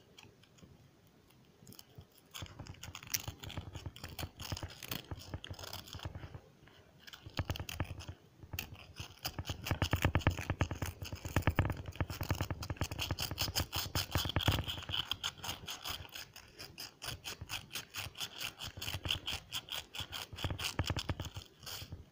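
Rapid back-and-forth scrubbing strokes on a skeleton key, several a second, cleaning it during restoration. The scrubbing comes in long runs broken by short pauses and is loudest in the middle.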